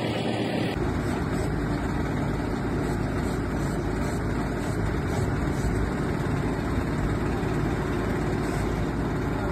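Truck-mounted borewell drilling rig running steadily: a heavy engine's even drone under a dense machinery noise, the deep rumble filling in a little under a second in.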